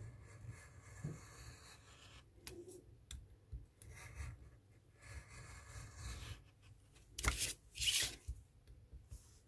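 Craft knife cutting through thick pattern paper along a card frame on a cutting mat, in faint scratchy strokes. Near the end, two louder paper swishes as the card is shifted on the mat.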